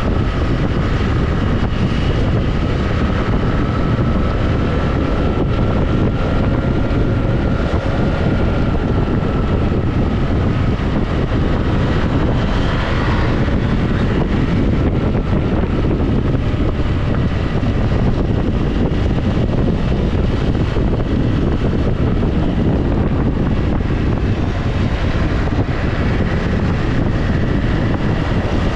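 Steady wind rush over a GoPro's microphone while riding, with a motorcycle engine running underneath at a fairly even pitch.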